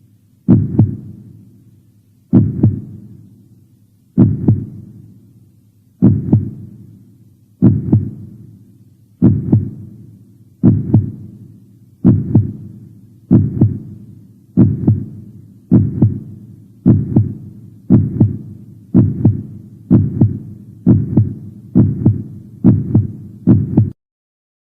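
Heartbeat sound effect: a deep, single thump repeated about nineteen times, speeding up steadily from roughly one beat every two seconds to about one a second, then stopping just before the end.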